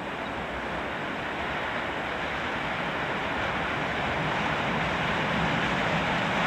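Narrow-gauge steam tank locomotive approaching under steam, its exhaust an even rushing noise that grows slowly louder.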